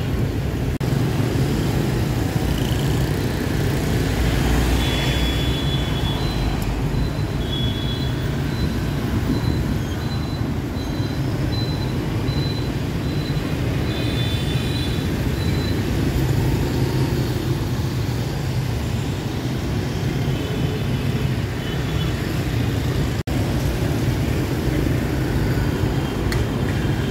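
Busy street traffic: a steady low rumble of passing vehicles, with a few short high beeps in the first half.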